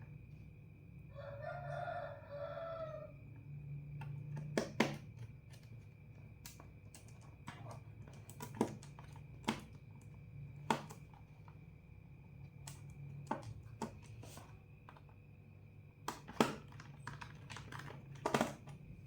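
Scattered sharp clicks and taps of a small screwdriver driving screws into a laptop's plastic bottom cover. A rooster crows once, about one to three seconds in.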